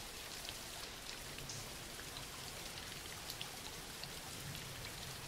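Quiet, steady rainfall with scattered individual drops ticking.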